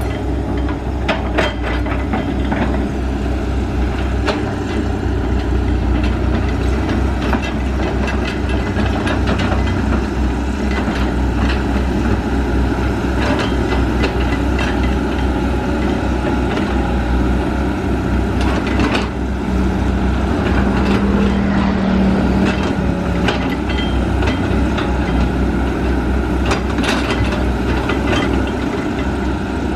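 Excavator engine running steadily as it digs, with scattered clanks and knocks throughout and a brief steady tone a little past two-thirds of the way through.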